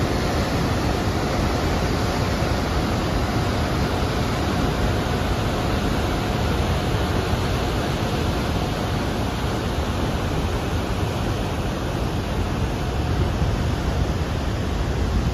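Water pouring over a river dam and churning in the channel below: a loud, steady rushing of whitewater.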